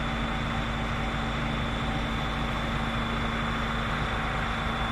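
An engine idling: a steady hum with a constant tone and a low rumble underneath, unchanging throughout.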